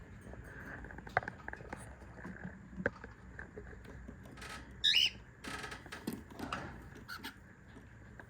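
Scattered clicks and short rustles of handling, with one brief cockatiel chirp about five seconds in.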